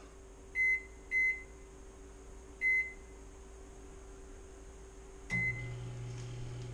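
Microwave oven keypad beeping three times as the time is set, then a fourth beep about five seconds in as it starts, followed by the steady hum of the microwave running.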